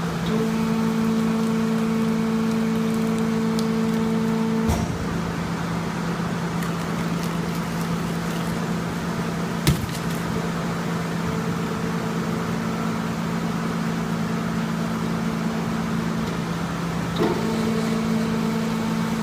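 Baling press running: a steady machine hum with a constant low tone, plus a higher tone that holds for about the first five seconds and comes back near the end. A single sharp knock comes about halfway through.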